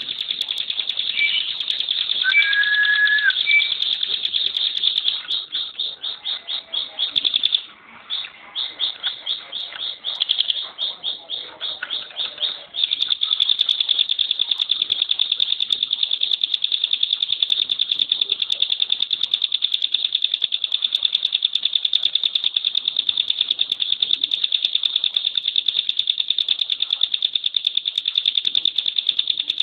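Ciblek pinus, a prinia, singing its rapid high rattling trill of fast-repeated notes, the dense 'tembakan' burst prized in songbird contests. For the first dozen seconds it comes in short runs with brief gaps, with one lower whistled note near the start, and after that it runs on as one unbroken fast trill.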